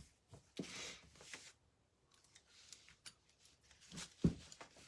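Faint work-table handling noises: a brief rustle, scattered light clicks and a soft thump about four seconds in.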